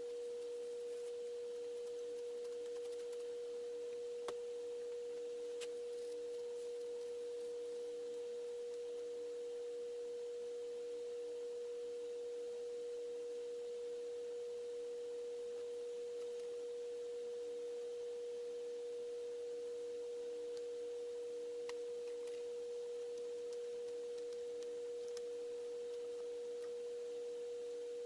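A steady pure tone, one even pitch just under 500 Hz with a fainter lower tone beneath it, broken only by a few faint clicks.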